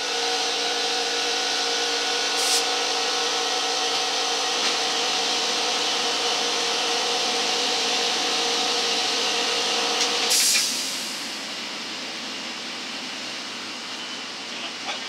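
A motor-driven machine running steadily with a hum, which cuts off about ten seconds in, leaving a quieter steady fan-like hiss.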